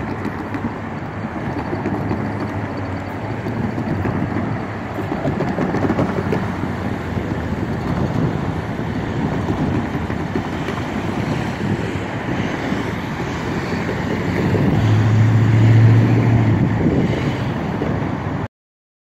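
Union Pacific freight train rolling slowly past with a steady rumble from its cars, with wind on the microphone. A low hum rises briefly a few seconds before the sound cuts off suddenly.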